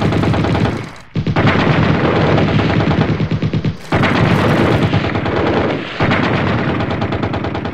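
Rapid machine-gun fire sound effect in long continuous bursts, with short breaks about one, four and six seconds in, fading out at the very end.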